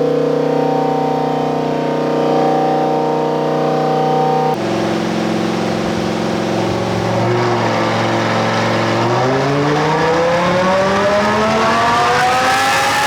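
Stock Lamborghini Huracán V10 running on a chassis dyno. It holds a steady speed, drops in pitch with a gear change about four and a half seconds in, then from about nine seconds pulls hard with its pitch rising steadily in a baseline dyno pull.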